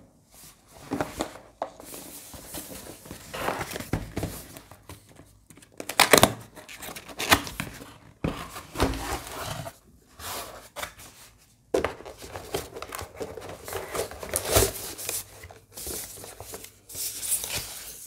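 Packaging being handled: a cardboard box turned, scraped and opened, and its thin white protective wrap crinkling and rustling as it is pulled back, in irregular bursts with a few sharp knocks.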